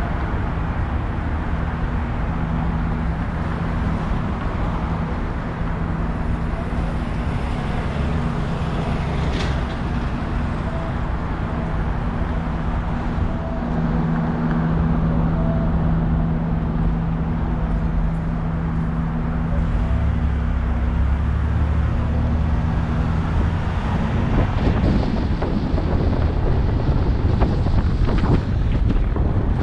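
Car driving: steady road and engine noise with a low hum. About 24 seconds in the hum drops away and rough, uneven buffeting takes over, like wind on the microphone.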